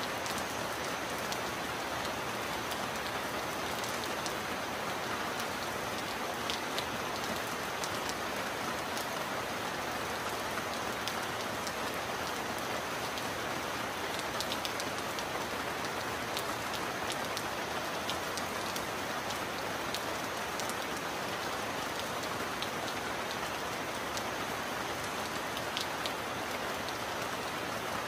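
Steady heavy rain falling, with scattered sharp ticks of single drops landing close by.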